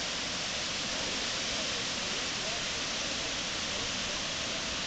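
Waterfall with white water sliding down sloping bedrock into a pool, giving a steady, even rush of falling water.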